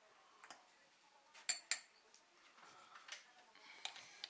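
Teaspoon stirring sugar into a mug, clinking against its side: several light clinks, the loudest two in quick succession about a second and a half in.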